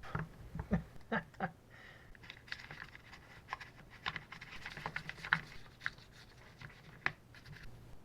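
Light clicks, taps and scraping of small carburetor parts and gaskets being handled and fitted by hand, an irregular run with the sharpest click about five seconds in.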